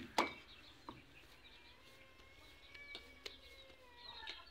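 Faint bird chirps and whistled calls, with a few sharp knocks as dough is kneaded in a steel bowl; the loudest knock comes just after the start.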